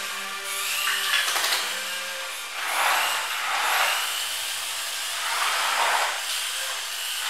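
Small electric gear motors of a toy remote-control excavator whirring as it drives on its tracks and moves its arm, swelling and fading several times.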